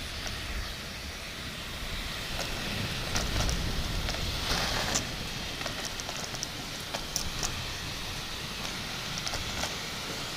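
Heavy rain, a steady hiss with scattered patters and crackles.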